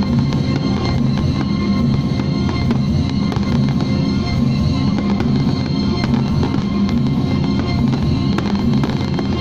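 A fireworks display in a heavy, near-continuous barrage: aerial shells bursting in rapid overlapping bangs over a steady low rumble, without a break.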